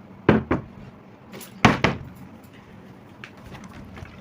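A plastic bottle being tossed in a bottle flip and landing, a cluster of hollow thuds in the first two seconds, a few knocks in quick succession.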